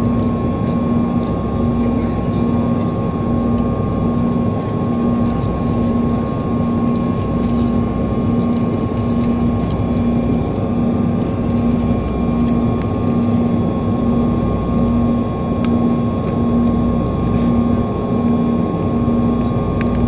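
Steady airliner engine drone and air rush heard from inside the passenger cabin, with a low hum that throbs in an even beat about once a second.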